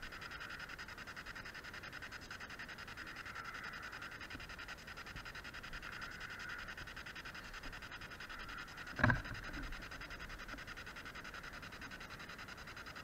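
Spirit box radio scanner sweeping through stations: a steady hiss of static, chopped in fast pulses. A brief thump about nine seconds in.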